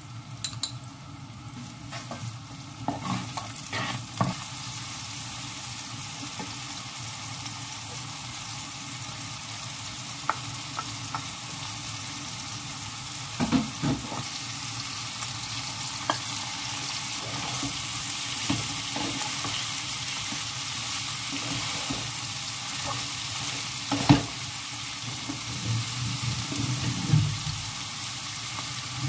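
Onions, diced meat and sliced green peppers sizzling in a frying pan while a wooden spoon stirs them. The hiss grows louder over the first several seconds and then holds steady, with a few sharp knocks and scrapes of the spoon against the pan.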